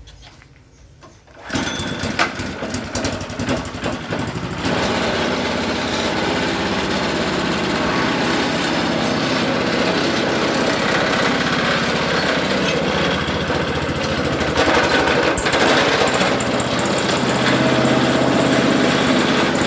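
Multifunction feed-chopper machine starting up about a second and a half in, running unevenly for a few seconds, then settling into a steady loud run.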